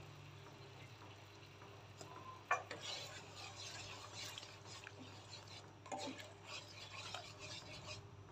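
Spatula stirring starch-thickened sauce in a nonstick wok: a light knock about two and a half seconds in, then faint, irregular scraping and swishing, over a steady low hum.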